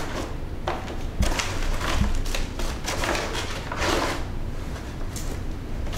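Brown paper bag rustling and crinkling in irregular bursts as hands rummage in it and pull out ingredient packets.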